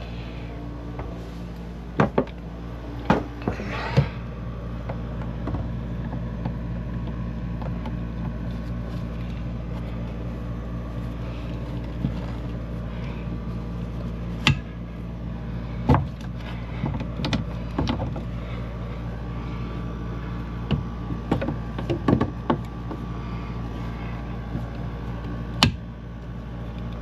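About a dozen scattered knocks and clicks at uneven intervals from hand work on PEX pipe and a fitting, over a steady low hum.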